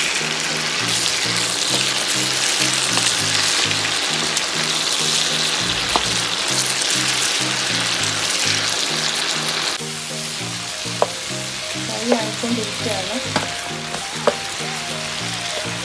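Chicken pieces frying in hot oil in a frying pan, a steady loud sizzle as they are stirred with a wooden spoon. About ten seconds in the sizzle drops quieter, and the spoon knocks against the pan four or five times.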